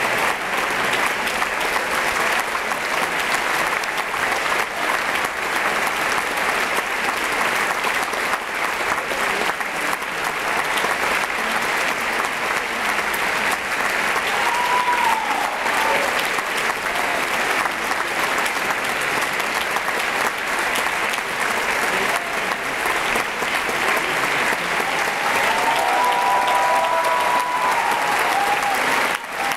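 Theatre audience applauding steadily, a dense sustained ovation.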